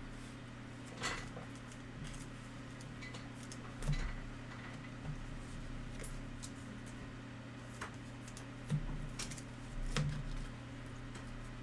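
Hands handling trading cards on a tabletop: a few soft taps and slides of cards at irregular intervals, over a steady low electrical hum.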